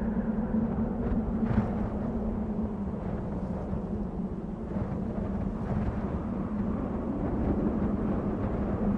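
Desert wind blowing steadily: a dense, low-heavy rush with a few faint hissing swells, over a constant low hum.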